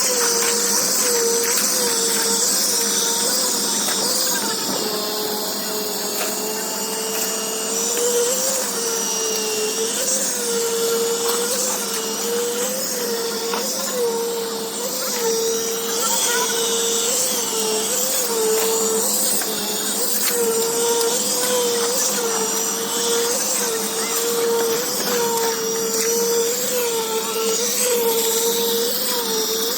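A machine motor running steadily, its pitch dipping and recovering about once a second.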